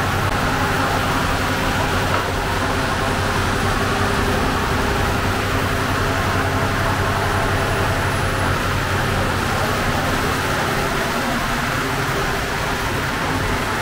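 A steady, unbroken mechanical drone: a low hum under a constant hiss.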